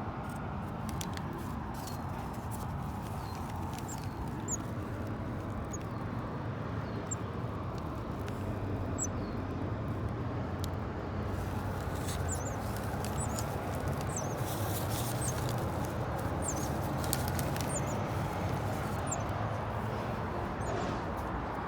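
Short, high-pitched cheeps from nestling birds in a balcony nest, scattered every few seconds over a steady low hum of distant traffic.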